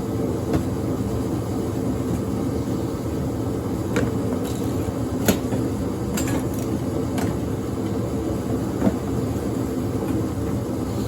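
A steady droning hum with about six light clicks and knocks scattered over it, the sharpest about five seconds in, as small heater-kit parts are handled.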